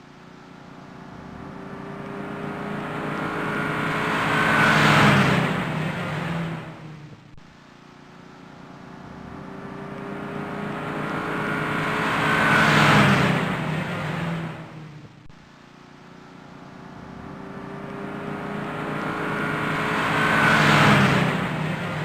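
VW Beetle driving past three times, about eight seconds apart. Each pass grows louder over several seconds, peaks, then fades.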